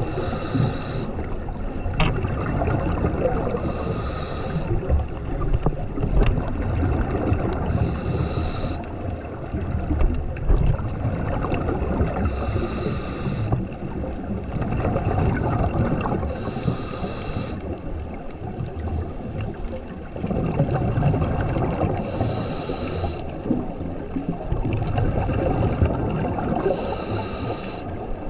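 Scuba diver breathing through a regulator underwater: a breath with a short hiss about every four to five seconds over a steady low rumble of bubbles and water.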